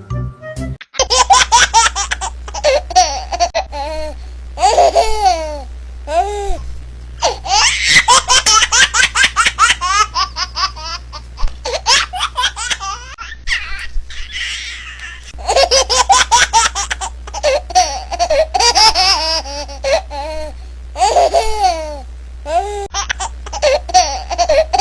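A baby laughing hard in repeated bouts of quick, high-pitched laughs, with a short lull about halfway through.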